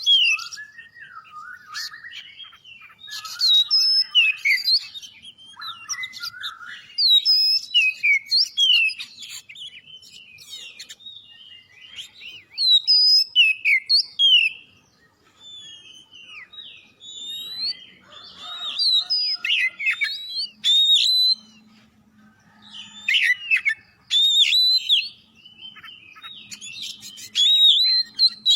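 Oriental magpie-robin (kacer) in full song: loud bursts of varied, rich whistled phrases with notes sliding up and down, repeated every few seconds with short pauses between them.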